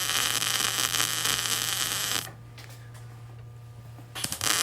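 Electric arc welding: the arc crackles and hisses over a steady low hum for about two seconds, stops, then strikes again briefly near the end. This is the first weld on the tool, which the welder says ran slightly colder than he wanted.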